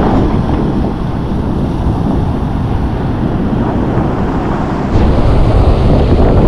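Wind buffeting the microphone over surf breaking on the beach, growing louder about five seconds in.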